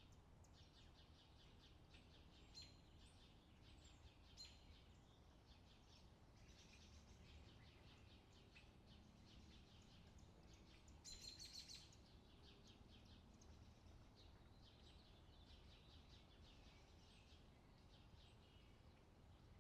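Faint outdoor summer ambience: small birds chirping again and again over a low, steady background rumble, with a louder run of chirps about eleven seconds in.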